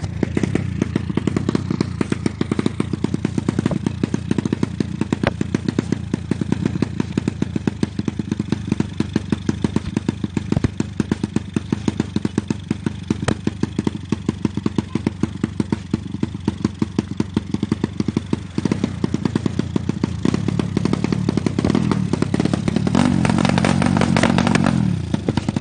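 Motorcycle engine running with a fast, even firing beat, revved harder near the end and then cutting off suddenly.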